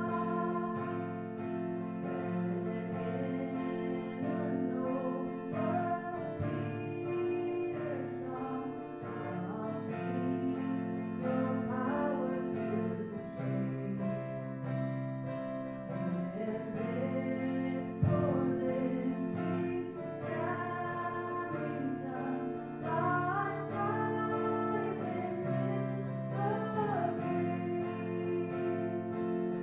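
Worship song with singing over acoustic guitar and other instruments.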